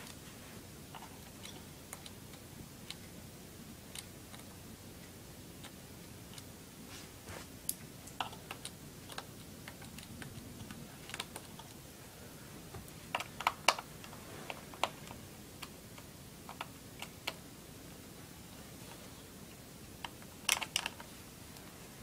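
Scattered light clicks and taps of a small screwdriver and screws against the plastic underside of an Acer laptop as its base screws are taken out, with a few sharper clicks in the second half.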